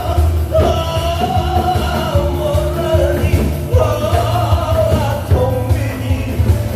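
A singer's amplified voice holding long, wavering notes in several phrases over a loud backing track with a steady pounding bass beat.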